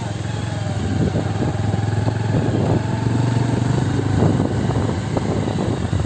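Motorcycle engine running at a steady low speed on a rough off-road track, with frequent short knocks and rattles as the bike goes over bumps.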